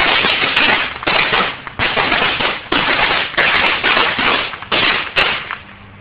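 A firework hissing in about six short spurts, with a few sharp crackles and no big bang.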